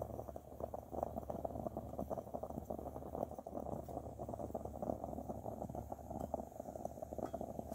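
Bialetti moka pot gurgling and sputtering as it finishes brewing: a steady stream of small crackling pops, over the low, steady rush of the Coleman 400 camp stove's burner.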